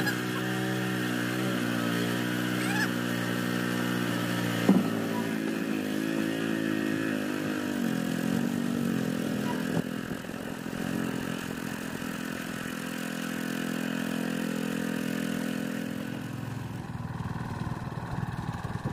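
Small petrol engine of a wooden longtail boat running under way. Its note wavers and drops a little about ten seconds in, and there is a single sharp knock about five seconds in.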